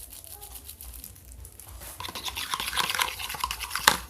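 Rapid scratchy clicking and scraping from hands working at a plastic bottle or container. It grows louder about halfway through and ends in one sharp click.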